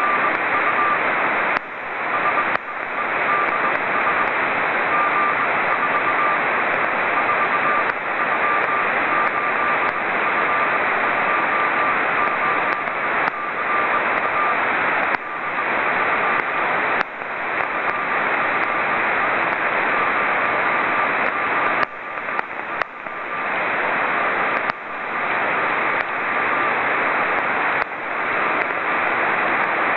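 Morse code (CW) beacon of the CO-66 (SEEDS II) amateur radio satellite heard through a Yaesu FT-817 receiver: a faint, thin beeping tone keyed on and off under loud, steady receiver hiss. The signal fades in and out, and the hiss briefly drops out several times.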